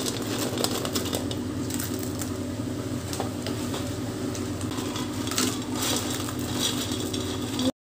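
Spatula scraping and clinking in a pan as fried potato fingers are tossed and stirred into a thick honey-chilli sauce, over a steady low hum. The sound cuts off suddenly near the end.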